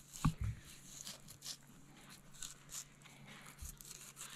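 Fillet knife slicing along the back of a whole pompano on a plastic cutting board: faint scrapes and small clicks, with a short thump near the start. A faint steady hum runs underneath.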